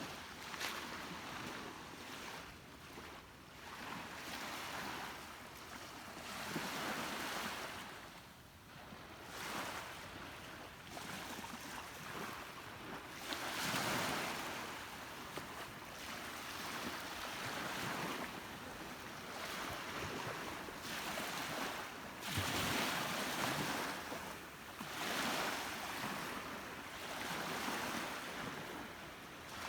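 Sea waves washing in on the shore, a rush of water swelling and falling away every few seconds, with wind on the microphone.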